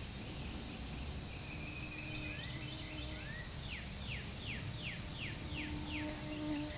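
Outdoor field ambience: a steady high insect drone, with a songbird giving a quick series of about seven down-slurred whistled notes, roughly three a second, in the second half. A faint low steady hum comes and goes twice.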